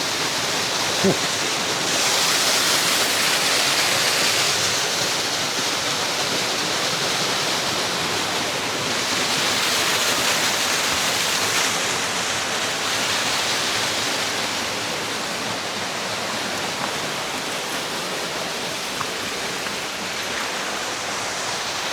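Waterfall rushing steadily, a little louder for a few seconds near the start and again about halfway through.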